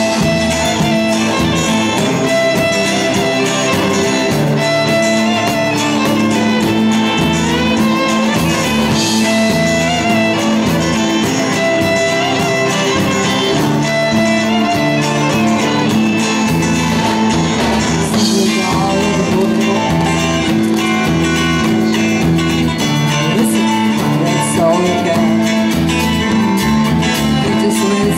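Live folk-rock band playing: fiddle, electric guitar and bass guitar, with a woman singing lead.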